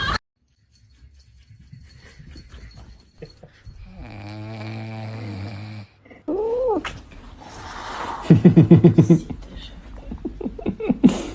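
A pet animal's vocal sounds. A steady low snore-like drone lasts about two seconds, a short rising-and-falling cry follows, and then comes a loud, rapid rattling sound, the loudest thing heard.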